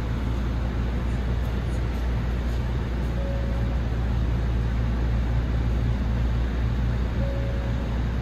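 Steady running noise heard inside a Hankyu electric train: a low rumble of wheels on rail and traction motors, with a faint short high tone twice.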